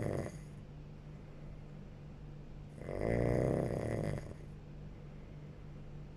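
A person snoring in sleep, one snore about every three and a half seconds: the end of one snore at the start, then a full snore lasting about a second and a half midway. A steady low hum continues in the gaps.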